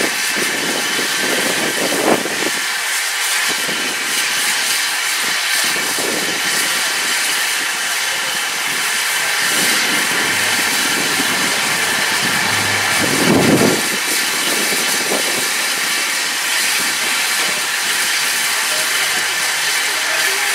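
LNER Q6 0-8-0 steam locomotive No. 63395 standing with steam hissing steadily. About 13 seconds in there is a brief louder sound.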